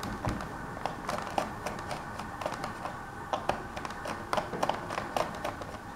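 Small screwdriver working a screw out of a Toshiba Satellite C55 laptop's plastic case: a run of small, irregular clicks and ticks of metal tool on screw and plastic.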